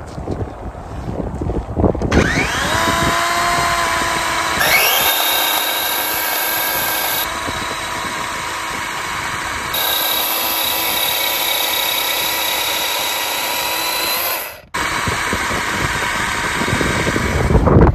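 DeWalt 20V MAX XR compact 12-inch brushless cordless chainsaw spinning up about two seconds in, then running in a steady electric whine as it cuts through a small log. There is a brief break near the end, after which it runs on.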